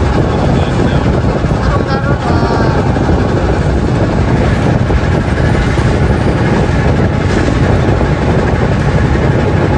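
Island-hopping boat's engine running steadily, a loud, even rumble.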